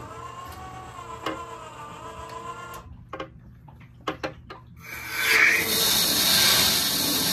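Iron filter's motorized control valve whirring as it drives into backwash, then stopping. A few sharp clicks follow as a PVC valve is turned, and about five seconds in water starts rushing with a loud steady hiss through the pipes and Venturi, the loudest sound.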